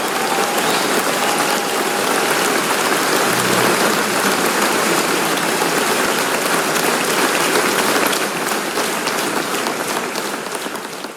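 Crowd applauding: a dense, even clapping that holds steady, then dies away near the end.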